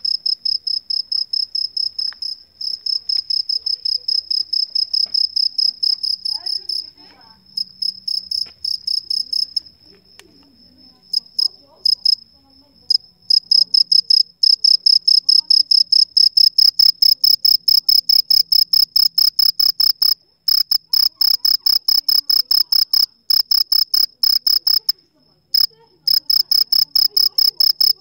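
A cricket chirping: a high, pure note repeated in rapid, even pulses. It falters and turns faint and broken for several seconds about a third of the way through, then comes back louder and steady, with a couple of short breaks.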